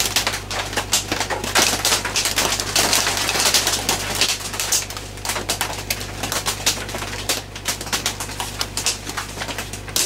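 Heavy rain on a tin roof: a dense, continuous popping of drops, with a steady low hum underneath.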